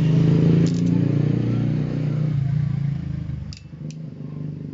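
Motorcycle engine idling steadily. It quietens about three and a half seconds in, with a couple of sharp clicks.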